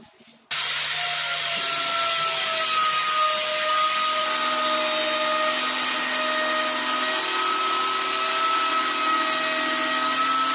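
Makita trim router running at full speed, flush-trimming the overhanging edge of wood-grain HPL laminate on plywood. It starts abruptly about half a second in, then keeps up a loud, steady hiss with a high whine whose pitch sags slightly under load and recovers.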